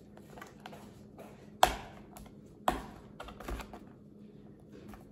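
Fingers picking and pulling at a small sealed cardboard box, trying to get it open. Scattered light clicks and taps, with two sharp clicks about a second apart near the middle and a few softer ones after.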